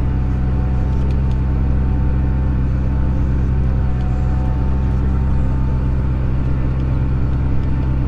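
Tractor engine running at a steady speed, a constant low drone heard from inside the cab.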